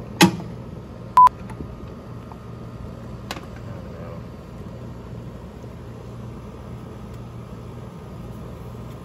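A sharp click, then about a second in a brief, loud electronic beep at one steady pitch, over a steady low hum.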